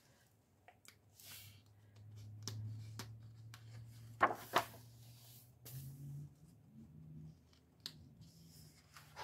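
Paper pages of a paperback coloring book being handled and turned: soft rustling and sliding with a few light clicks, loudest about four seconds in. A faint low hum runs underneath from about two seconds in and steps up in pitch partway through.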